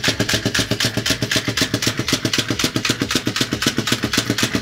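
Battery-powered Chubby Puppies & Friends Yorkshire Terrier toy hopping along a tabletop in a circle: its small motor and plastic legs make a rapid, even clicking clatter.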